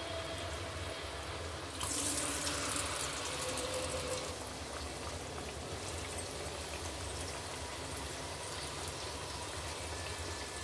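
Batter-coated potato wedges deep-frying in hot oil, a steady sizzle and bubbling. About two seconds in it flares louder and hisses for about two seconds as another wet-battered wedge goes into the oil, then settles back.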